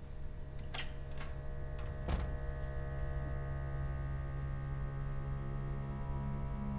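Ominous horror-score drone: a steady low hum with layered sustained tones that slowly builds, with a few sharp ticks in the first two seconds or so.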